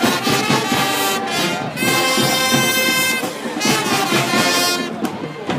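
High school marching band's brass section playing a loud, sustained passage of held chords, which dies away near the end.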